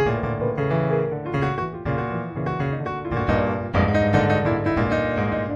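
Solo piano music, a steady flow of notes and chords.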